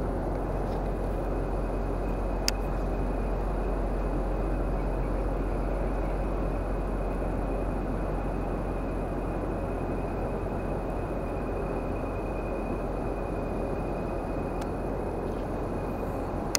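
Steady low mechanical drone with a thin, faint high whine held over it, and a single sharp click about two and a half seconds in.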